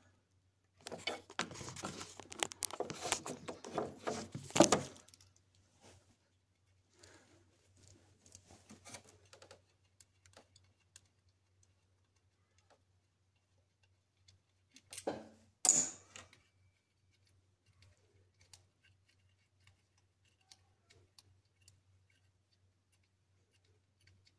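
Rattling and handling noise for the first few seconds, ending in a sharp click. Then sparse faint clicks and ticks, with a short metallic clatter about 15 seconds in, as small hand tools work the Torx screws holding the MAP sensor to the intake manifold. A faint steady low hum runs underneath.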